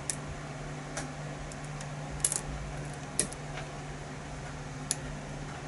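Light metallic clicks of a lock pick and tension wrench working the pins of a challenge lock: about half a dozen separate ticks, with a quick cluster a little past two seconds, over a steady low hum.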